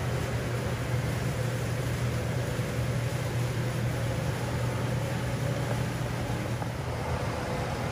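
Steady low mechanical hum under an even rushing hiss, unchanging throughout.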